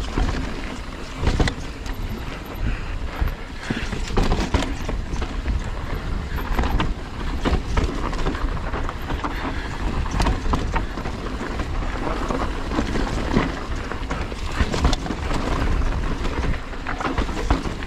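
Mountain bike riding down a rough dirt trail: a steady rush of tyre and wind noise, broken by frequent irregular knocks and rattles from the bike as it goes over the rough ground.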